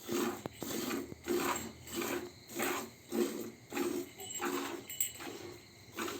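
Hand milking of a Holstein Friesian cow: jets of milk squirting in a steady rhythm, about one and a half strokes a second.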